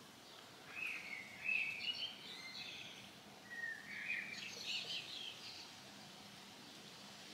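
Bird singing outdoors: a run of quick chirping notes starting about a second in, then a second phrase about three and a half seconds in, over faint outdoor background noise.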